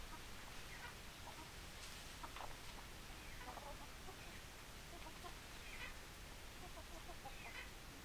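Chickens clucking: faint, short clucks scattered throughout, with no crow.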